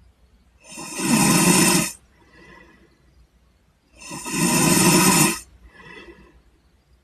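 A person snoring in deep sleep: two loud snores about three seconds apart, each lasting over a second and followed by a much softer breath out.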